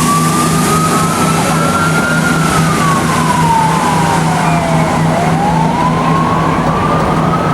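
Emergency-vehicle siren wailing: a slow rise in pitch, a fall over about three seconds from two seconds in, then a rise again, over a steady low hum and hiss.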